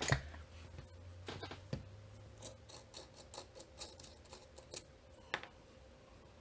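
Small metal clicks and light scraping from a 9-pin dimple cam lock being handled as its disassembly begins, with a run of quick ticks in the middle and one sharper click near the end.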